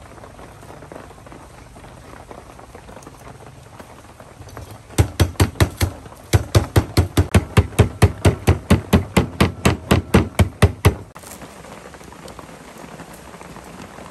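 Cleaver chopping on a wooden chopping board: a fast run of hard strikes, about four a second, starting about five seconds in and stopping about eleven seconds in, with a short break after the first second. A steady hiss lies underneath.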